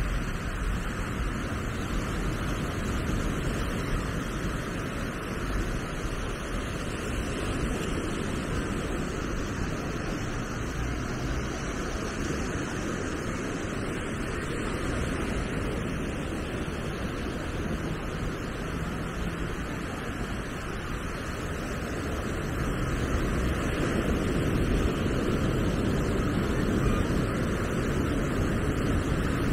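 Low ocean surf washing onto a sandy beach, a steady rushing wash, with wind buffeting the microphone. It grows a little louder in the last several seconds.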